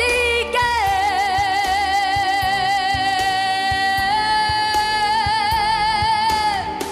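A young woman singing solo into a microphone over a backing track, holding one long high note with vibrato for about six seconds. The note steps up slightly about four seconds in and trails off near the end.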